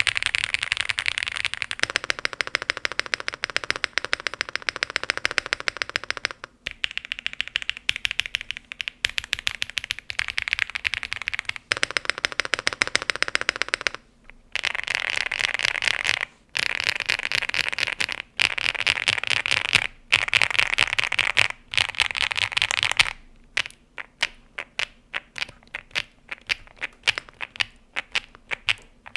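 Elecfox INKY75 mechanical keyboard being typed on quickly, a dense stream of keystroke clacks broken by a few short pauses. Near the end the typing slows to separate, single keystrokes.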